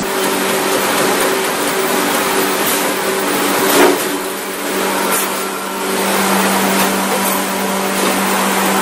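Powered cutting wheel grinding through a metal pipe: a steady motor hum under grinding noise, with a few louder scrapes.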